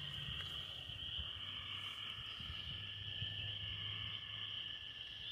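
Crickets singing in a steady, continuous high-pitched chorus, with a faint low hum underneath.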